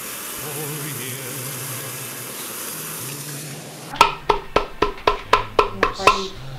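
A steady hiss, then about four seconds in a glass jar shaken by hand, its contents striking the glass about four times a second for some two seconds with a short ringing clink each time.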